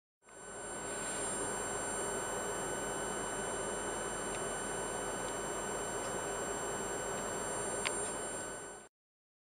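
Electrical test rig running: a steady whine with a constant high tone and several higher ones over a hiss. It fades in at the start and cuts off abruptly near the end, with a single sharp click about eight seconds in.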